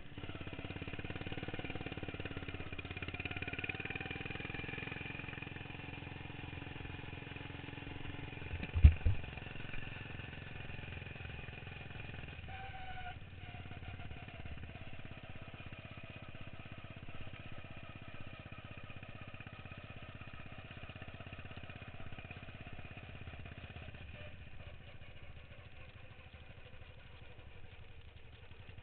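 Racing lawn mower's small engine running steadily, with one sharp thump about nine seconds in.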